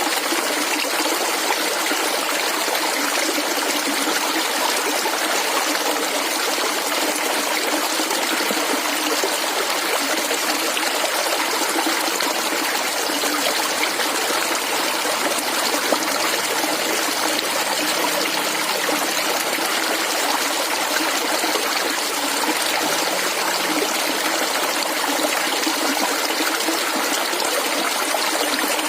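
A small stream of clear water flowing and gurgling steadily over stones.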